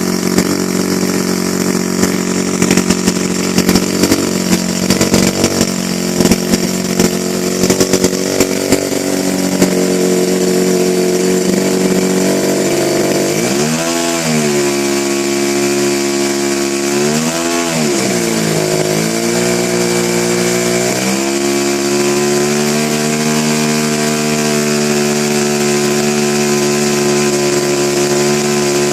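Revolver 50 engine running during its second run: a steady idle with irregular popping for the first several seconds, then revved up and back down twice about halfway through, and settling at a steady, slightly faster speed.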